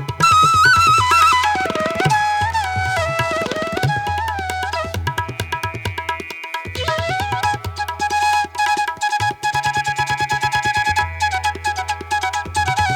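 Background music with tabla drumming under a melodic instrument line and a steady low drone.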